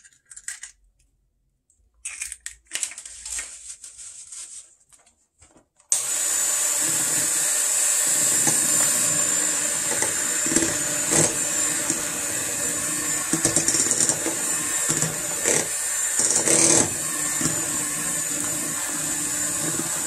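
Electric hand mixer switched on about six seconds in, running steadily with a high whine as its beaters work an egg into cheesecake batter in a glass bowl, with a few brief knocks along the way. Before it starts there are only quiet handling sounds.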